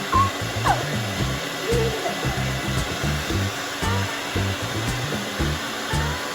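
Hair dryer blowing steadily, with background music playing underneath.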